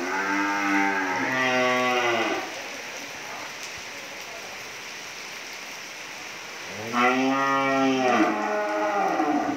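Cattle mooing: two long calls of about two and a half seconds each, the second starting about seven seconds in, each breaking partway into a second lower or higher part. A steady hiss of rain fills the gap between them.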